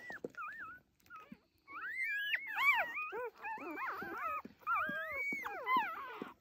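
A litter of newborn Akita-cross puppies squealing and whimpering, several high-pitched rising-and-falling cries overlapping one another. A few short cries come first, then a long unbroken run of them from about two seconds in.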